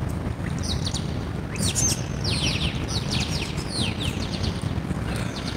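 Birds chirping: a quick run of high, falling chirps starting about a second and a half in and lasting some three seconds, over a steady low rumble.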